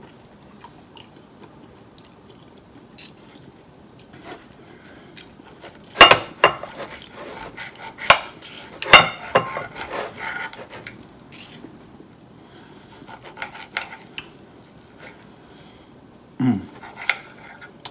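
Steel knife and fork scraping and clinking against a plate while a steak is cut, with a cluster of sharp clinks about six to ten seconds in and a few more near the end.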